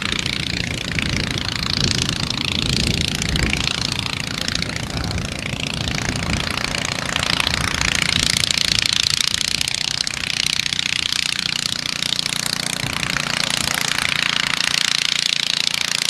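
The Bristol Cherub air-cooled two-cylinder flat-twin engine and propeller of a Lincoln Sport biplane running at low taxiing power, a steady, rapid, even beat.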